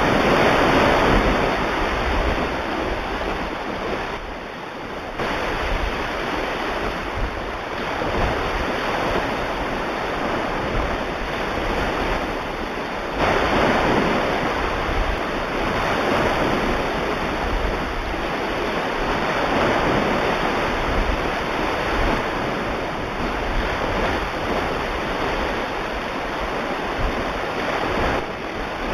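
Ocean waves used as a soundtrack: surf washing, swelling and falling back every few seconds.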